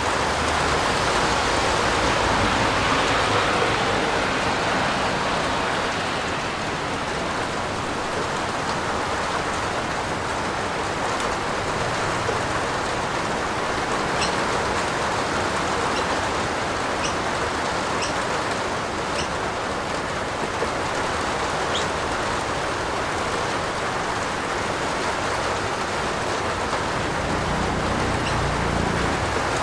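Steady heavy rain falling on a roof, an even hiss with a few sharp drop ticks now and then. A faint low rumble swells in near the end.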